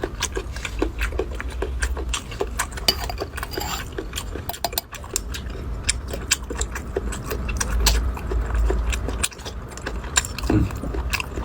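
A person eating close to the microphone: a dense run of irregular clicks and smacks from chewing and biting, over a low rumble.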